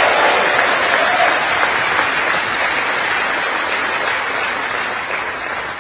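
A large audience applauding: sustained clapping, loudest at the start and slowly dying down toward the end.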